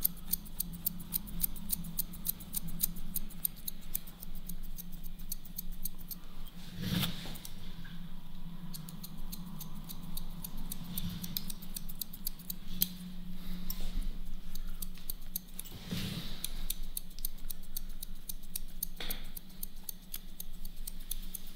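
Hairdressing scissors point-cutting into the ends of dry hair, a long run of quick, small snips with a few louder rustles, over a steady low hum.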